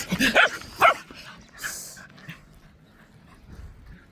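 Dog barking in excitement during ball play: a few short, sharp barks in the first second, then it goes much quieter.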